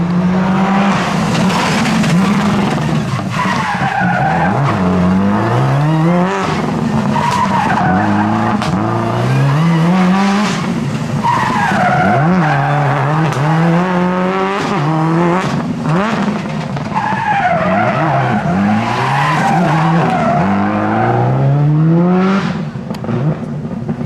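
Subaru WRX rally car's turbocharged flat-four engine revving hard, its pitch climbing again and again in short bursts of acceleration. The tyres squeal as the car slides sideways on tarmac.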